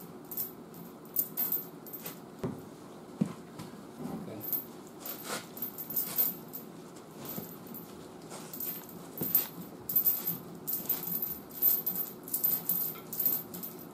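Irregular light metallic clinks and ticks from the chain and hooks of a dozer-type frame machine as they take load while a pickup's frame is pulled. The clinks come faster in the last few seconds.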